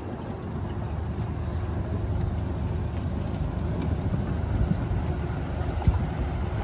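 Small boat's motor running steadily as it moves across the water, a low, even rumble.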